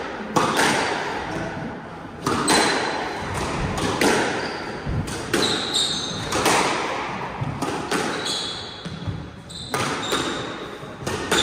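Squash rally: the ball struck by rackets and cracking off the walls about once every second or two, each hit echoing around the enclosed court. Short high squeaks of shoes on the wooden floor come between the hits.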